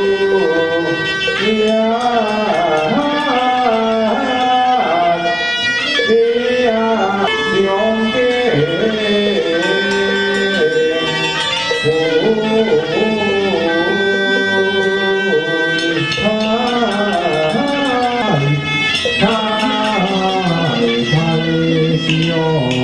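Traditional Taoist ritual music: a reedy wind instrument playing a continuous, sliding melody over percussion.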